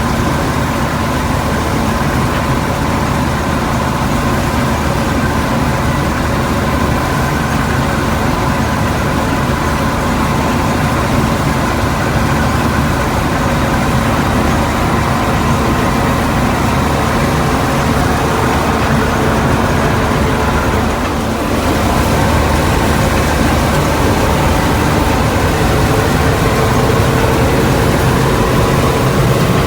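Combine harvester running steadily, a constant engine and machinery drone with a brief dip in loudness about twenty-one seconds in.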